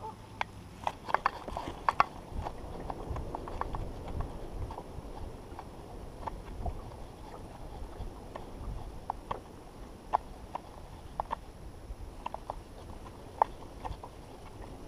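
Small waves slapping and knocking irregularly against the side of a small fishing boat, over a low wind rumble.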